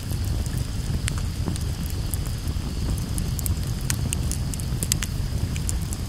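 Wood campfire burning, with irregular sharp crackles and pops scattered over a steady low rumble.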